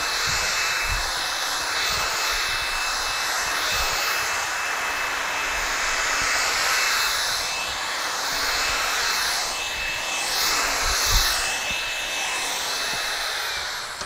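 Cordless stick vacuum on its highest setting, its powered brush head pushed back and forth over carpet: a steady rush of air under a thin high whine. The motor switches off and winds down right at the end.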